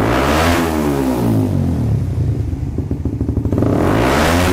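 Motorcycle fitted with a Smoke Muffler carbon exhaust, with no dB killer anywhere, revved while parked. One rev peaks about half a second in and falls back to idle, and a second, higher rev climbs near the end, to a little over 11,000 rpm. The sound is loud and bounces off the walls and ceiling of a closed room.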